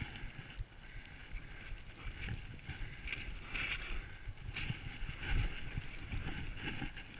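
Skis hissing through deep powder snow in uneven swells, over a steady rumble of wind on the microphone.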